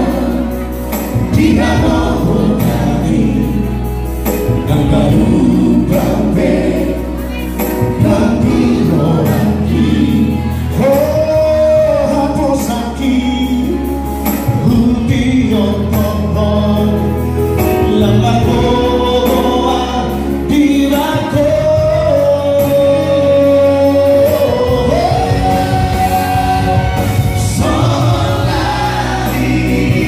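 Male vocal trio singing a song in harmony through handheld microphones, over amplified backing music with sustained bass notes that change every few seconds.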